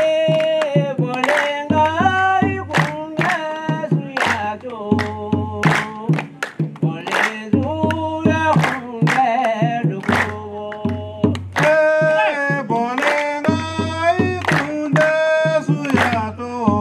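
Singing with a steady drum beat, struck about once every 0.7 seconds: the music accompanying the mask's appearance.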